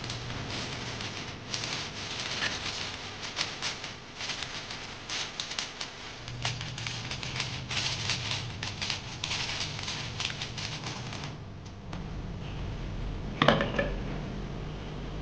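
Aluminium foil crinkling and crackling as hands press and crimp it over the rim of a metal pan, for about eleven seconds, then dying down. Near the end, a single sharp knock.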